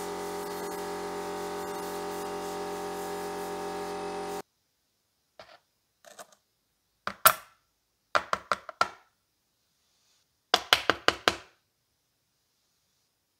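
Abrasive blasting in a sandblasting cabinet: a steady hiss that cuts off sharply about four seconds in. Then sharp metallic clicks and taps as steel tweezers pick small screws and nuts out of a plastic tub, with two quick runs of four or five clicks near the end.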